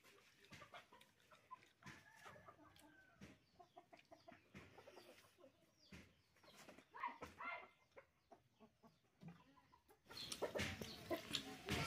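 Chickens clucking in short, scattered calls, faint at first and much louder in the last two seconds.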